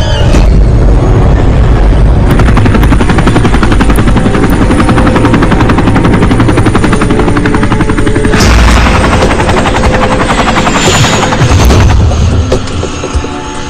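Action-film sound effects: a loud, fast, steady rattle for about eight seconds, then a noisier stretch that drops away near the end.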